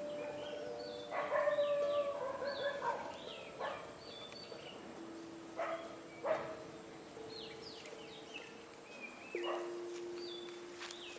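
Forest birds chirping, with a few short barks from a dog, over soft held musical notes that fade out.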